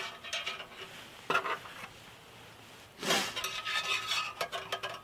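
Thin metal pins scraping and clinking against the metal walls of a small Firebox Scout stove as they are pushed through its holes: a short scrape about a second in, a louder, longer scrape about three seconds in, then a few light clicks near the end.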